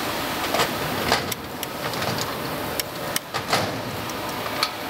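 Several sharp, irregular clicks as the adjusting nut on an electric bike's rear drum brake rod is turned by hand against the brake arm, over a steady background noise.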